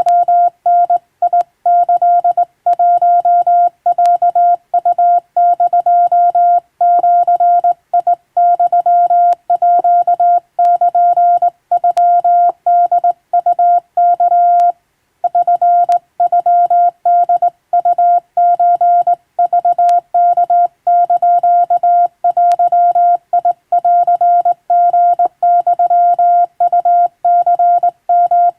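Hand-keyed Japanese (wabun) Morse code: a single steady mid-pitched beep switched rapidly on and off in dots and dashes, with a short break about halfway through.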